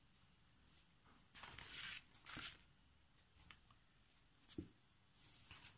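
Faint handling sounds: two short rustles followed by a few light ticks as hands move a sheet of paper and satin ribbon pieces on a tabletop.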